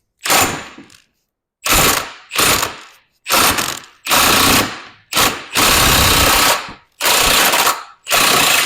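Wrench working the flywheel nut or puller bolt on a Polaris 850 two-stroke engine, in about nine short, loud bursts with brief pauses between them.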